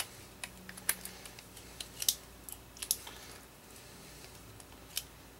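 Irregular light metallic clicks and taps of a socket torque wrench being fitted and worked on the mower's blade bolts, tightening them to 40 Nm. The clicks come thickest in the first few seconds, with a single click near the end.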